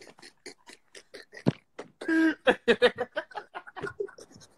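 Men laughing hard without words: quick, breathy pulses of laughter, with a louder voiced laugh about two seconds in.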